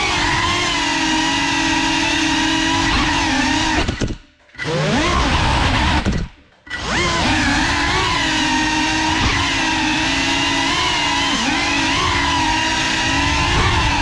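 Geprc Cinelog 35 cinewhoop's brushless motors whining, the pitch wavering up and down with the throttle. Twice the sound cuts out for about half a second as the motors stop, and it comes back with a rising whine as they spin up again.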